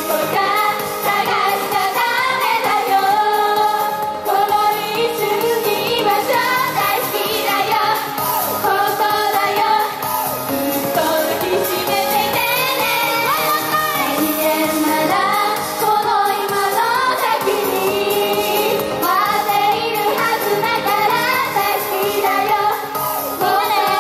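Japanese female idol group singing a pop song live, with the full band accompaniment running under the voices without a break.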